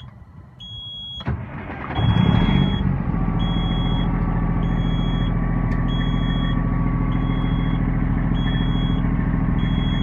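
1998 Peterbilt 378's Detroit Diesel Series 60 inline-six cranked by the starter about a second in, catching within a second, flaring briefly and settling to a steady idle on a cool start. A high warning beep from the dash repeats evenly throughout.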